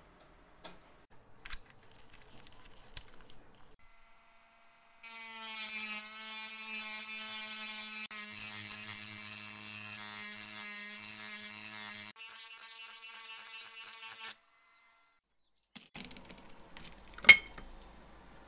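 A small electric power tool, drill-like, switched on about five seconds in and running at a steady pitch for about nine seconds before cutting off. Light clicks of small metal parts being handled come before it, and a single sharp click, the loudest sound here, comes near the end.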